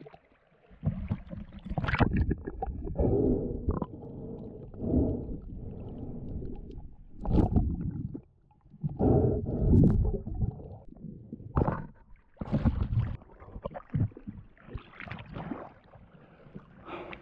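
Water sloshing and gurgling around a snorkeling spearfisherman at the surface, in uneven surges about a second long, with two sharp clicks in the middle.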